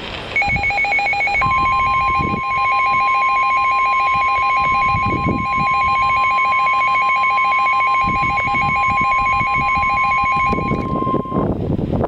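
Emergency alert tones: the National Weather Service 1050 Hz warning alarm tone, one steady high tone held for about ten seconds, starting about a second and a half in, over a rapidly pulsing electronic beep that starts just before it. Both stop near the end, leaving hissy static.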